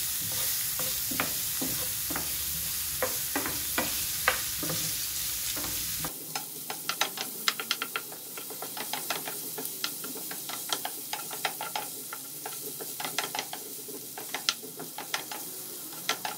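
Baby potatoes and carrots frying in olive oil in a nonstick pan, sizzling while being stirred with a wooden spoon, with many small crackles and clicks of the spoon and food against the pan. About six seconds in the sound turns thinner and a little quieter, but the sizzling and clicking go on.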